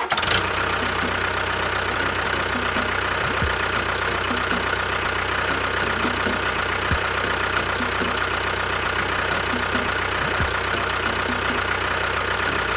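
A motor running steadily at one speed, with a fast, even ticking over its hum.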